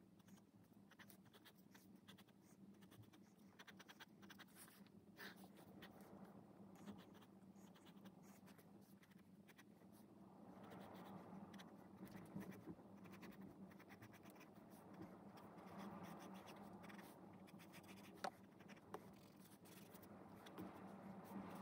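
Graphite pencil drawing lines on sketchbook paper: faint, repeated scratching strokes, a little louder and busier in the second half. A faint steady hum runs underneath.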